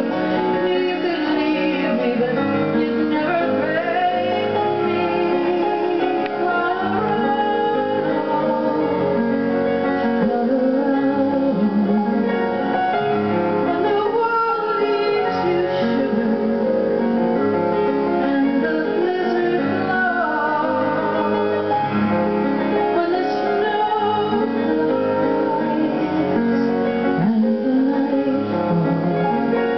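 Live folk song: piano and guitar accompanying a woman singing.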